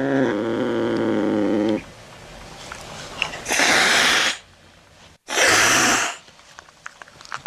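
Domestic cat yowling in one long drawn-out cry that stops about two seconds in, followed by two hisses, the second shorter.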